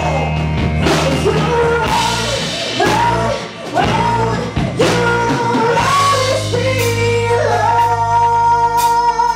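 Live rock band: a woman singing lead over electric guitar and drum kit. She holds one long sung note through the last few seconds.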